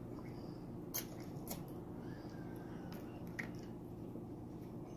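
Faint mouth clicks and smacks of someone eating, three sharp ones standing out, over a steady low hum.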